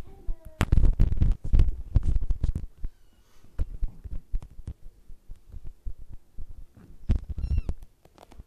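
Irregular low thumps and rubbing, the handling noise of a handheld phone's microphone as it is moved about, with a short high-pitched squeal about seven seconds in.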